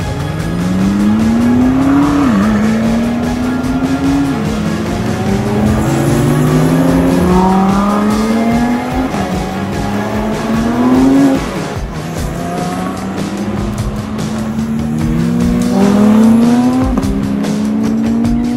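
Supercar engines accelerating hard away one after another, each pitch rising and then dropping sharply at an upshift, several overlapping runs through the gears.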